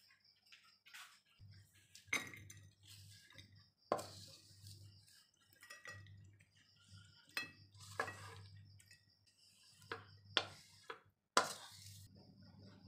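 Wooden spatula scraping and knocking against a steel wok and a ceramic plate as fried anchovies are scooped out, a clink or scrape every second or two, over a faint low hum.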